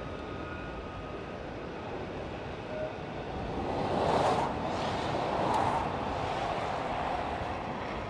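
Enclosed autorack freight cars rolling past on the rails: a steady rumble and rush of steel wheels on track that swells louder around the middle, with a couple of brief sharp noises.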